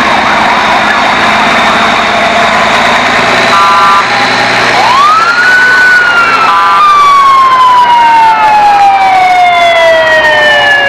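Siren rising in pitch about five seconds in, then sliding slowly down. Two short multi-tone horn blasts come just before and just after the rise.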